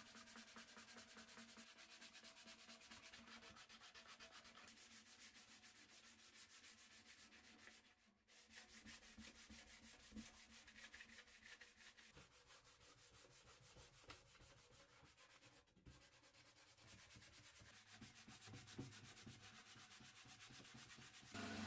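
Sandpaper rubbed by hand over the metal body of an old paraffin can: faint, quick back-and-forth scratching strokes, broken by two brief pauses.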